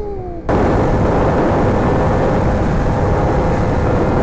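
Yamaha R1 inline-four engine note falling off, then about half a second in a sudden switch to loud wind rush on the microphone, with a steady engine tone underneath, as when riding at speed.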